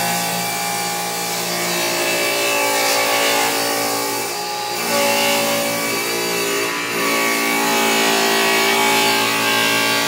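Table saw with an old blade ripping a stapled wood panel lengthwise, running steadily under load, with a brief dip in level about four seconds in.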